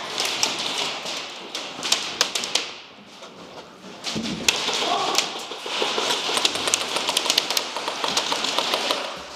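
Airsoft guns firing inside plywood-walled rooms: a dense run of rapid clicks and taps from shots and BBs striking the walls, easing off for about a second around three seconds in.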